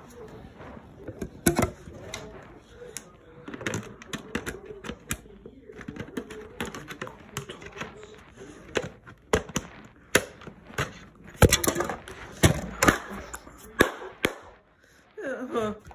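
Plastic toy playset pieces being handled, clicking and knocking irregularly, with a few sharper snaps, the loudest about eleven seconds in.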